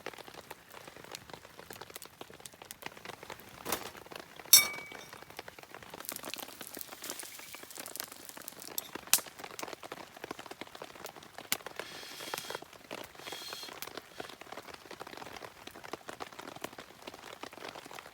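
Wood campfire crackling and popping over the steady patter of rain, with a few louder sharp cracks. The loudest crack comes about four and a half seconds in and has a brief ring.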